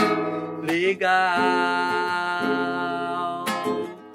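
A man sings in Portuguese to his own acoustic guitar, holding one long note that starts about a second in, over the guitar's chords.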